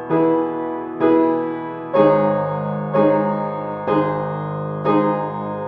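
Piano chords struck about once a second, each ringing and fading before the next, with no singing.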